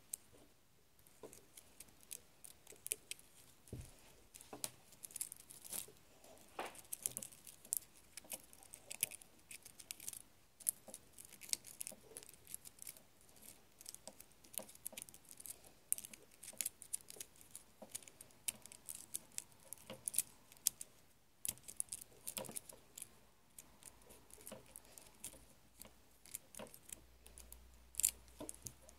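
Close handling noise of fingers working a drinking straw: a quiet, irregular run of small clicks, taps and crinkling rustles.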